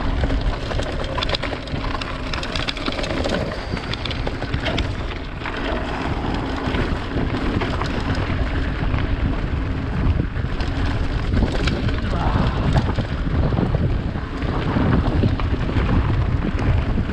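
Wind rushing over the camera microphone and mountain-bike tyres rolling over a loose gravel track on a fast descent, with frequent clicks and rattles from stones and the bike.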